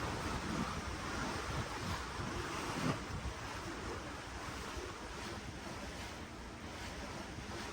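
Ocean waves heard from a cruise ship's deck: a steady wash of sea water with wind rumbling on the microphone. It swells briefly about three seconds in, then eases a little.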